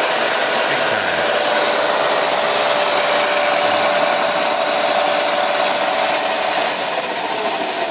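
Razor drift kart's electric drive motor and chain running steadily under throttle, a steady whine over a rushing noise, fed over 30 volts from a homemade 18650 lithium-cell pack in place of its stock 24-volt batteries. It eases off near the end, the whine falling in pitch.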